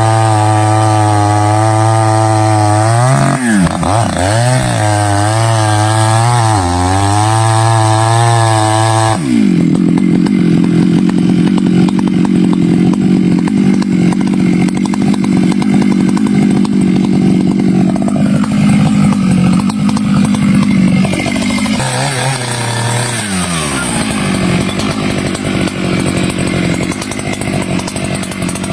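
Stihl chainsaw running at high revs, its pitch dipping and recovering as it works under load. About nine seconds in the sound changes abruptly to a rougher, noisier steady running, and later the pitch falls briefly before steadying again.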